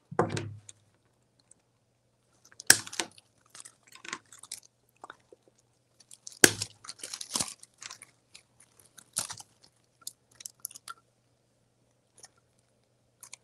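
Artificial greenery stems being handled, with crinkly plastic-leaf rustling, and two sharp snaps as wire cutters clip through the wired stems: one about three seconds in and another nearly four seconds later.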